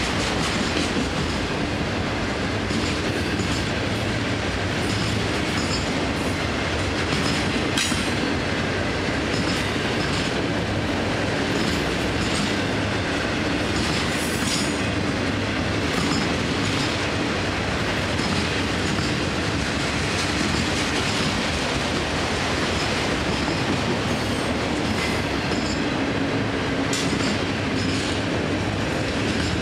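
Freight train's autorack cars rolling past at steady speed, a continuous rumble of steel wheels on rail with clicking over the rail joints and a few sharper metallic clicks.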